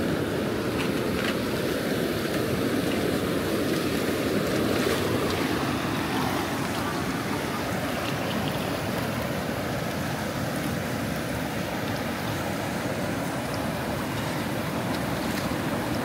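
Floodwater rushing steadily over an embankment.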